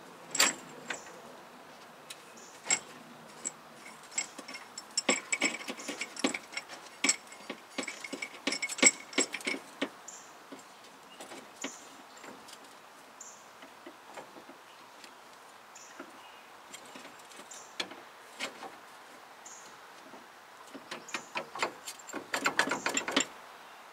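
Steel tools clinking and clacking as a C-frame ball joint press and its adapter cups are fitted and shifted around a truck's upper control arm, in irregular bursts with a busy stretch early on and a quick run of clicks near the end.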